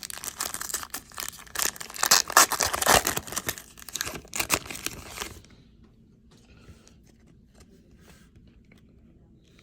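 Wrapper of a baseball card pack being torn open and crinkled for about five seconds, loudest midway, then only faint rustles as the cards are handled.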